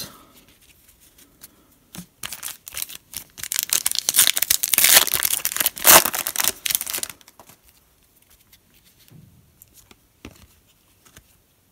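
Foil wrapper of a Panini Prizm basketball card pack being torn open and crinkled by hand, a dense crackling tear from about two seconds in that stops about five seconds later. Faint ticks of cards being handled follow.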